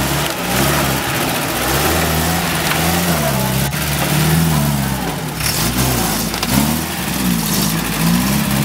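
UAZ-469 four-by-four engine revving up and down repeatedly as it pulls up a muddy slope and drives past, the pitch rising and falling several times.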